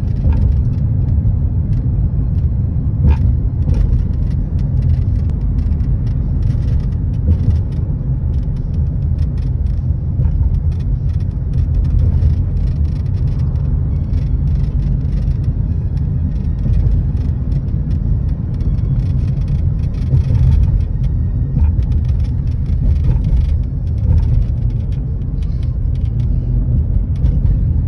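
Steady low rumble of a moving car heard from inside the cabin: road and tyre noise with the engine underneath.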